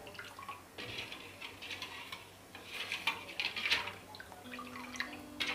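Liquid swishing and sloshing in irregular strokes as a plastic ladle stirs lemon-sugar water in a metal pot.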